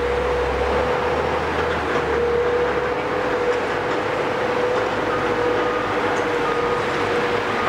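Caterpillar 374 demolition excavator running under load as it raises its boom and demolition shear: a dense, even machine noise with a steady whine, and a low rumble in the first three seconds.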